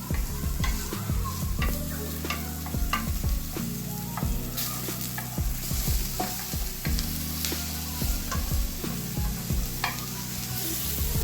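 Sliced mushrooms and garlic frying in olive oil in a hot pan with a steady sizzle, while a utensil stirs them, knocking and scraping against the pan many times.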